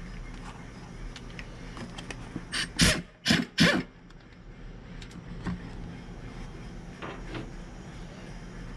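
Four short blasts of compressed air from an air blow gun, hissing one after another about a third of the way in, blowing debris off the engine block. A faint low hum and small knocks of work on the engine run underneath.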